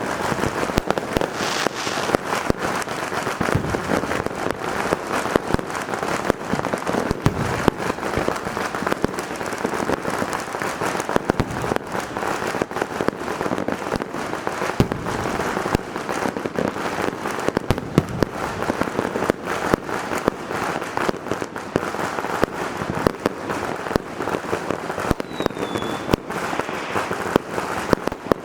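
Fireworks going off in a dense, unbroken barrage of rapid bangs, pops and crackling.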